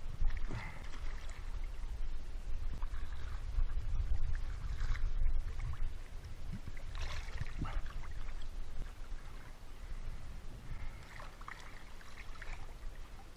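Shallow sea water sloshing and splashing around a wading swimmer as he moves and handles his swim fins, with bursts of splashing about half a second in, around seven seconds, and near the end, over a steady low rumble.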